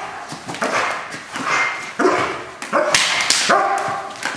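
German Shepherd police dog barking repeatedly at a decoy in bite-work training, roughly one bark a second, with two sharp cracks about three seconds in.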